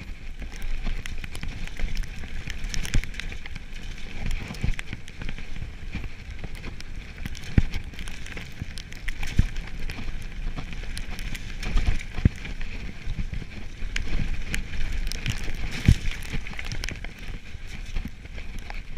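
Mountain bike riding fast down a rough, wet gravel trail, heard from a camera on the rider: a constant rush of tyre and wind noise broken by frequent knocks and rattles as the bike hits bumps, with a few heavier thumps.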